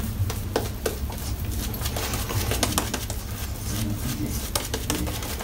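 Boar-bristle shaving brush working lather over the face close to the microphone: a steady wet scrubbing full of small crackling clicks.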